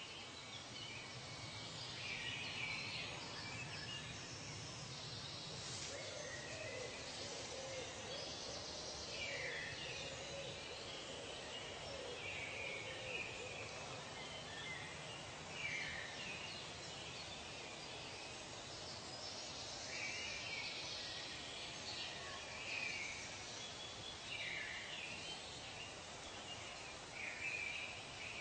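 Nature soundscape: birds calling in short phrases every few seconds over a steady background hiss.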